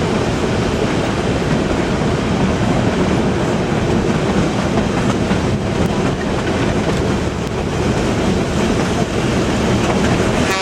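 A narrow-gauge passenger train running along the track, heard from an open car: a steady rumble and clatter of wheels and cars that does not let up.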